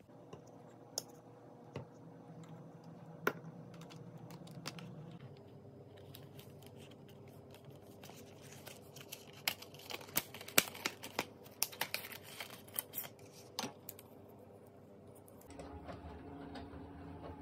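Hands handling a plastic-wrapped pack of paintbrushes: a run of sharp clicks and crinkles in the middle, over a low steady room hum, with a few faint ticks before it.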